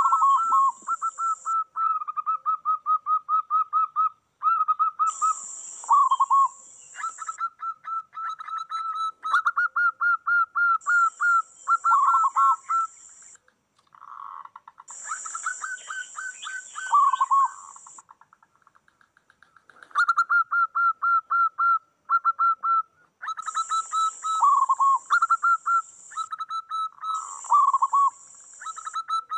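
Several zebra doves (perkutut) singing over one another: fast runs of short cooing notes, each run ending in a few lower, drooping coos, with brief pauses between phrases. A high hiss comes and goes in spells of a second or two.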